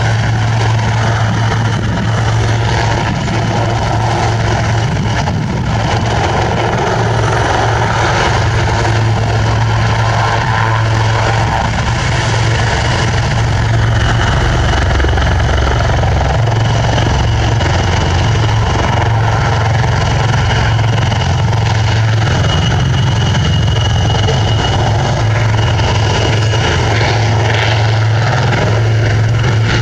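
Royal Navy AgustaWestland Wildcat helicopters flying low, their rotors and turboshaft engines giving a loud, steady drone with a constant low hum.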